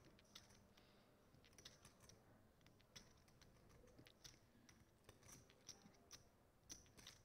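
Near silence with faint, irregular clicks in small clusters, typical of poker chips being handled at the table.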